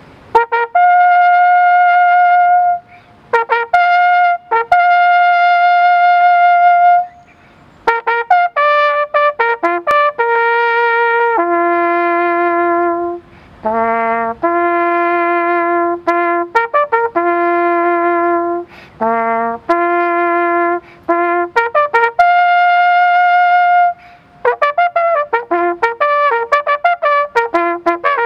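Solo flugelhorn playing a slow melody of long held notes broken by quick runs of short notes, with brief pauses between phrases. The playing turns to a faster run of short notes near the end.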